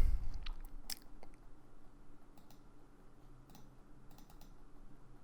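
Scattered sharp clicks of a computer mouse and keyboard, a few spread over several seconds, over a faint steady electrical hum. A brief muffled thump comes right at the start.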